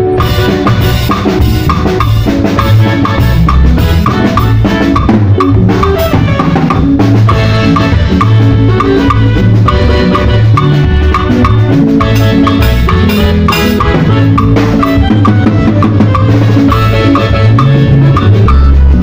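Drum kit and percussion playing a steady groove within loud music, along with a bass line and other pitched instruments.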